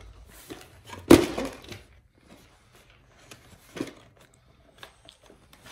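Handling noises at a wooden hive top while sheet aluminum flashing is folded around its corner: a sharp knock about a second in, then small clicks and rustles and a duller knock near four seconds.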